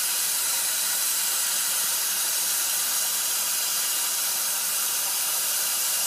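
Steady hiss of compressed air leaking out of a Ford 6.0 Powerstroke's high-pressure oil system at the base of the number 5 injector, the loudest leak point. This is the leak that keeps injection control pressure from building, the cause of the engine's no-start when hot.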